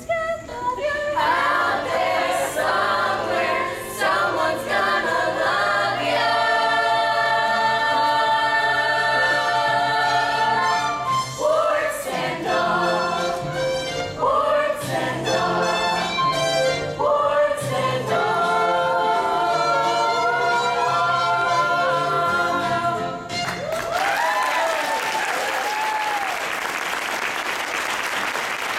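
A stage-musical number sung by a chorus of voices with accompaniment, building to long held chords. About 24 seconds in, the singing stops and the audience breaks into applause.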